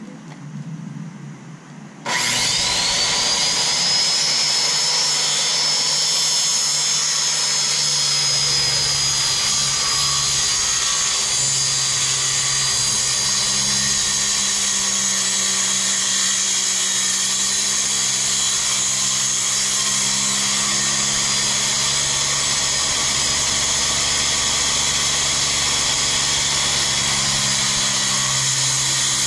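Handheld circular saw starting about two seconds in, its whine rising quickly, then running steadily as it cuts a sheet of plywood.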